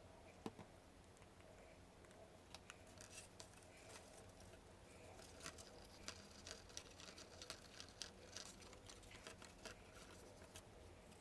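Faint light clicks and rustles of card pieces being handled, pressed and fitted together.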